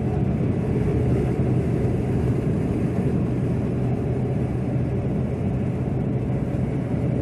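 Steady drone inside a Chevrolet Silverado pickup's cab cruising at highway speed: a constant low engine hum under tyre and wind noise.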